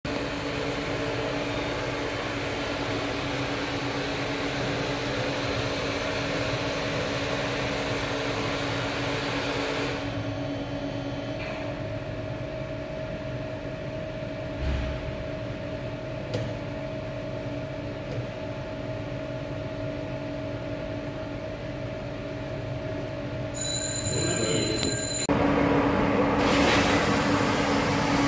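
Seydelmann K 204 bowl cutter running: a steady mechanical hum with a constant tone. The hiss over it thins about ten seconds in, a brief high whine sounds shortly before the end, and the running then grows louder.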